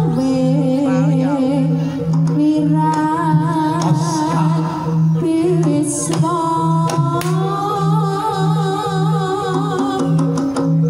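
Live Javanese jaranan gamelan music with a female singer: a steady low beat about twice a second under a wavering, ornamented vocal melody.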